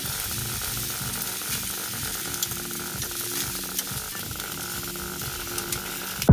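Meat sizzling on a grill grate over glowing charcoal: a steady hiss with scattered small crackles.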